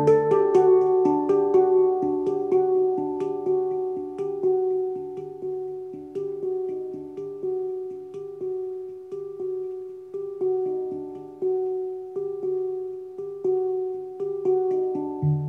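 A Hang, a steel hand-played instrument, played with the fingers and palms: a flowing stream of struck, ringing notes, about two a second, each fading slowly over a sustained low tone.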